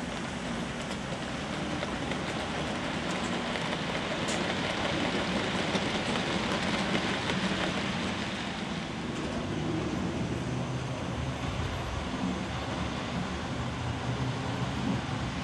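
HO scale model trains rolling along the track: a steady rolling rumble and hiss of small metal wheels on the rails, a little louder about six to eight seconds in as the silo wagons pass closest.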